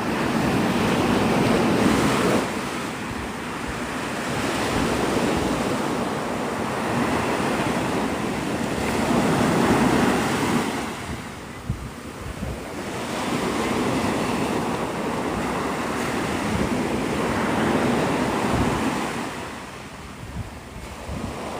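Gulf surf washing onto the beach, the rush of breaking waves rising and falling every few seconds, with wind buffeting the microphone.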